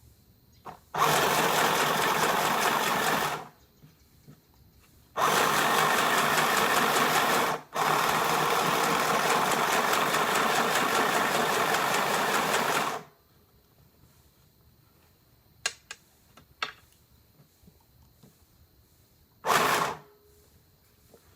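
Portable mini sewing machine stitching in three runs of a few seconds each, the last about five seconds long, then a few sharp clicks and one more brief run near the end.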